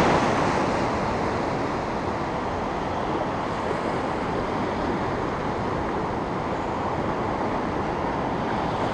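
Steady rush of ocean surf washing through the shallow shore break, an even hiss and low rumble with no separate splashes standing out.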